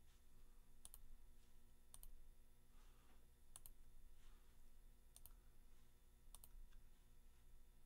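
Faint computer mouse clicks, about six single clicks spaced a second or so apart, over near-silent room tone with a low hum.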